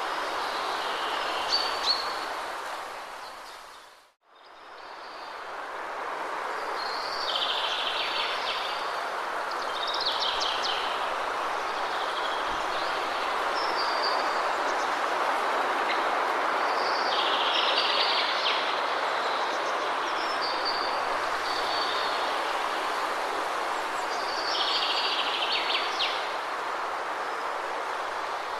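Waterfall rushing steadily, with birds chirping in short bursts every few seconds over it. About four seconds in, everything dips briefly to silence and fades back up, like a loop being rejoined.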